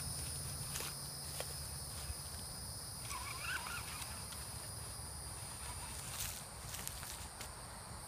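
A person's footsteps crunching and brushing through grass and sandy ground while walking behind a dog, with a steady high insect drone underneath.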